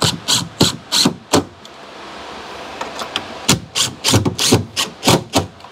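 A run of sharp knocks and clacks, about three a second, for the first second and a half and again from about three and a half seconds in, as an electrical box is worked onto a wooden post with a cordless drill/driver. A steady hiss of fan air runs underneath.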